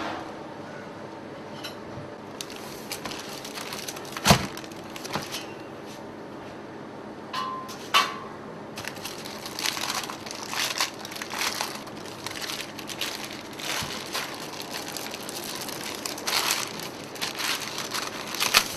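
Baking paper crinkling and rustling as it is handled around a slab of pastry, in dense irregular crackles through the second half. A single sharp knock comes about four seconds in, over a faint steady hum.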